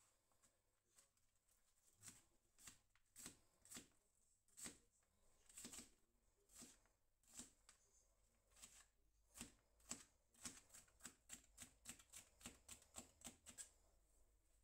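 Chef's knife chopping red bell pepper on a plastic cutting board: faint sharp taps of the blade striking the board, spaced out at first, then a quicker run of about three or four a second from about ten seconds in.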